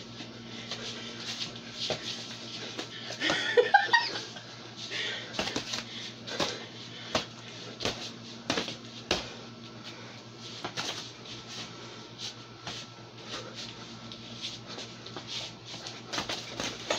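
Boxing gloves smacking against gloves and arms, with feet scuffing, during close sparring: irregular short knocks all the way through, over a steady low hum. A short voice sound comes about three and a half seconds in.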